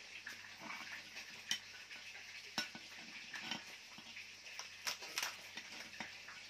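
Cooked lobster being pulled and cracked apart by hand, its shell giving scattered clicks and crackles, with a few sharper snaps.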